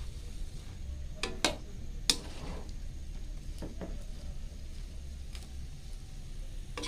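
Metal spatula stirring bean sprouts and tofu in a steel wok, scraping and knocking against the pan with a few sharp clacks, the loudest about two seconds in, over a faint sizzle.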